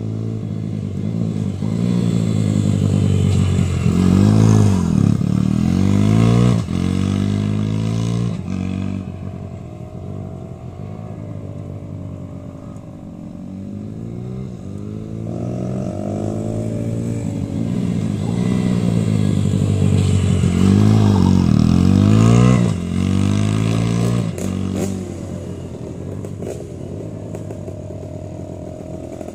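Small mini-GP motorcycle engines revving as the bikes ride past close by, twice: about five seconds in and again, loudest, about two-thirds of the way through. Each pass rises and then falls in pitch.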